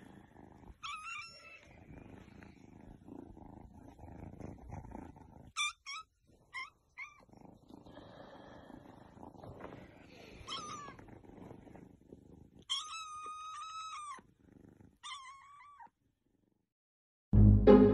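Kitten purring, with a string of short, high mews over it and one longer drawn-out mew about thirteen seconds in. Loud music cuts in just before the end.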